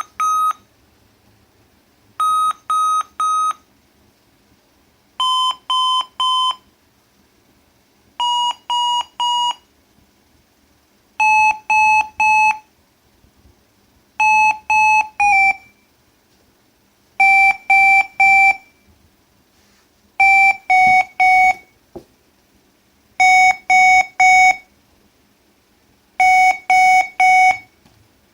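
Sonic Alert Sonic Bomb Jr alarm clock sounding its alarm in groups of three sharp beeps, one group about every three seconds. The pitch steps lower with each group, from a high beep down to a much lower one, as the tone control is turned down.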